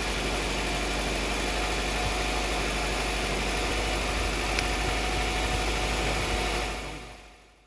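1990–97 Honda Accord engine idling steadily, with the replacement alternator charging the battery at a little over 14 volts. A single sharp click about halfway through as the multimeter dial is turned, and the sound fades out near the end.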